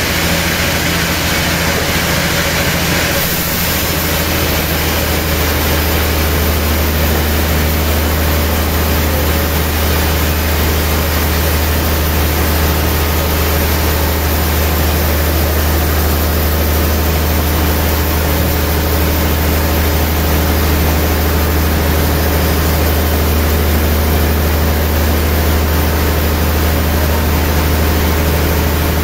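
Sawmill machinery running steadily: a loud low hum with a broad whirring noise over it, from the mill's band-saw machine.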